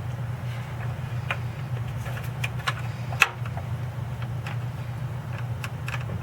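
Hand tools clicking and tapping against metal fittings under a truck, a dozen or so irregular light clicks with one sharper knock about three seconds in, over a steady low hum.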